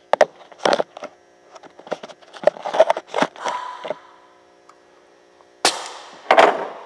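Irregular knocks and clatter from handling the camera and a compression tester's hose, with two louder bangs near the end, each trailing off, over a faint steady hum.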